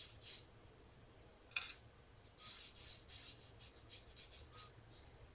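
Watercolour brush scrubbing and swirling paint in a palette well: a run of faint, short scratchy rubbing strokes, mostly in the middle, with a sharp tap about one and a half seconds in.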